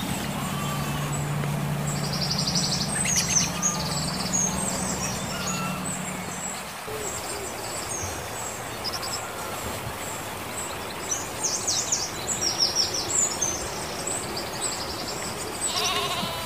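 Small birds chirping and singing in quick high calls, heard in bunches, with a steady low hum under the first third that stops about seven seconds in.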